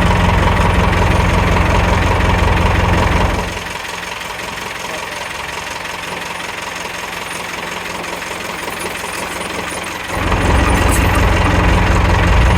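Ford 555 backhoe's diesel engine running steadily, heard from the operator's seat. About three and a half seconds in, its low rumble drops away to a quieter hum and comes back about ten seconds in.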